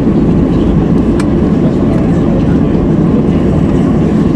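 Cabin noise of a Boeing 737-800 taxiing after landing, heard from a window seat over the wing: its CFM56 engines at idle and the airflow through the cabin make a steady, even rumble.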